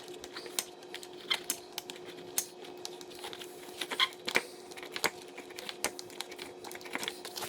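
Plastic chin spoiler being worked by hand, giving irregular sharp clicks and scrapes, several a second, over a faint steady hum.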